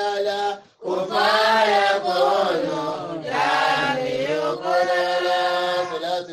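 A man's voice chanting an Islamic devotional chant in long, drawn-out melodic phrases, with a brief break for breath about a second in.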